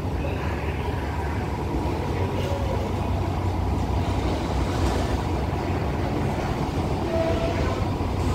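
Diesel train with Alsthom locomotive 4401 at the head, giving a steady low engine rumble.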